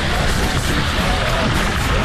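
Background music, loud and steady.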